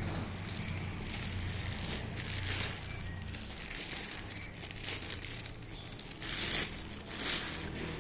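Packaging crinkling and rustling as it is handled, with two louder crinkles near the end.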